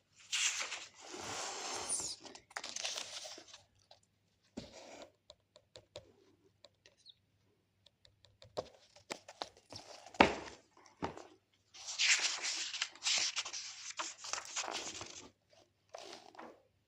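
Handled material crinkling and rustling in two spells of about three seconds each, one right at the start and one past the middle, with scattered small clicks and taps between them.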